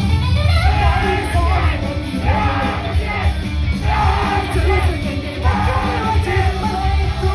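Loud live rock music from an idol group: a heavy band backing with singing and shouted vocals over it.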